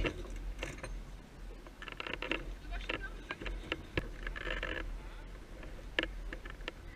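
Scattered sharp clicks and knocks of a sailboat's deck hardware and lines as the crew works the sheets just after a tack, with faint, indistinct voices. The sharpest clicks come about four and six seconds in.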